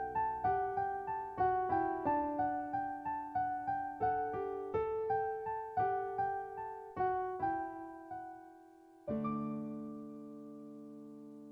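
Background piano music: a melody of single struck notes at an easy pace, ending on a held chord that slowly fades.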